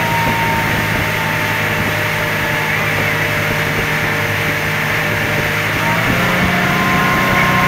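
Ski boat's engine running steadily under way while towing a water skier, over the rush of wind and water. Its pitch rises slightly about six seconds in.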